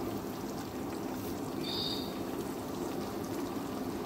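Thick sweet and sour sauce simmering and bubbling steadily in a frying pan on the stove. A short high chirp sounds about halfway through.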